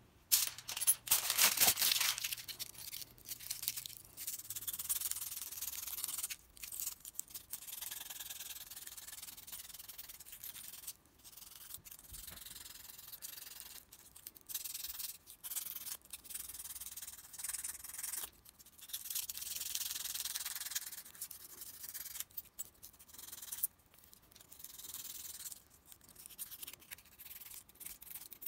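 Scratchy hand rubbing against a hard surface, in uneven strokes broken by short pauses, loudest in the first couple of seconds.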